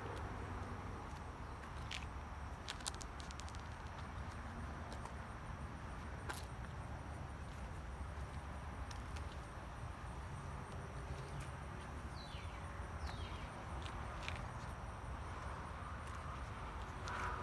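Outdoor ambience: a steady low rumble with scattered light clicks and footsteps, and a few brief falling chirps about twelve seconds in.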